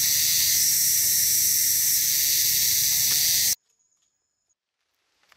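Loud, steady, high-pitched insect chorus that cuts off abruptly about three and a half seconds in, leaving near silence.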